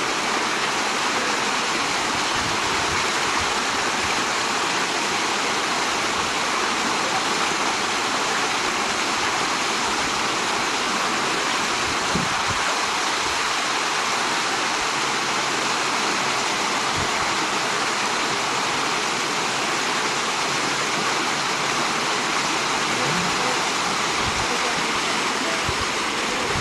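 Water pouring down a small artificial rock waterfall, making a steady rushing splash.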